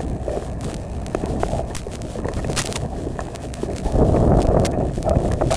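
Wind and handling rumble on the microphone, with scattered clicks and crunches of movement over rubble; it grows louder about four seconds in.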